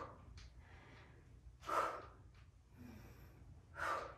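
A woman breathing out hard about every two seconds, in time with her Bulgarian split-squat reps: heavy breathing from exertion.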